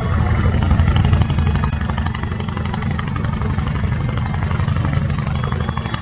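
Ship's diesel engine running with a steady low rumble.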